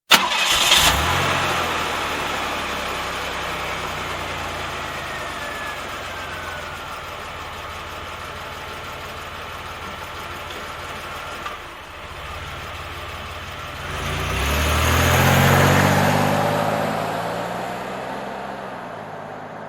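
A 1993 Buick LeSabre's 3.8-litre V6 starts after a brief crank and settles into a steady idle. About fourteen seconds in, the engine speeds up once, rising in pitch and level, then slowly eases back down.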